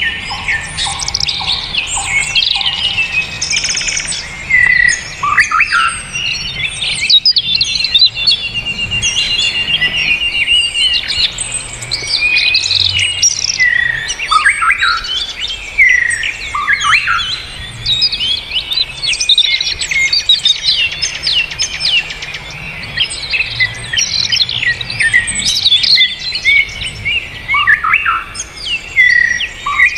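Dense chorus of songbirds singing over each other: many fast chirps, whistles and trills running continuously, with a rapid trill about eight seconds in. It is a songbird 'masteran' recording, song played to train cage birds.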